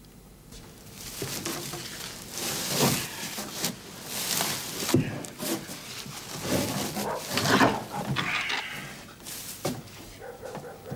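Irregular rustling and scraping with several sharp knocks as a barn is searched by hand: straw, crates and a wooden barrel being handled and shifted.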